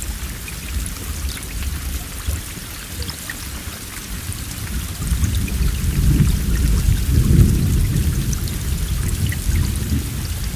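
Steady heavy rain hissing, with fine drop patter. Halfway through, a low roll of thunder swells up, peaks and slowly fades.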